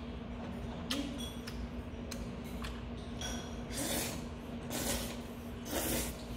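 A man slurping jjajangmyeon noodles off metal chopsticks, three short slurps in the second half. There is a light click about a second in and a steady hum underneath.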